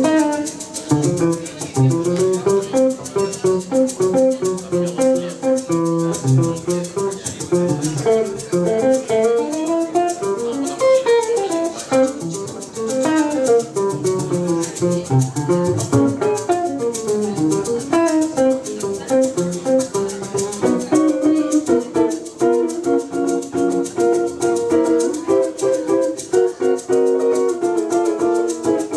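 Live instrumental passage: a guitar picking a melody over chords, with a hand shaker keeping a steady rhythm.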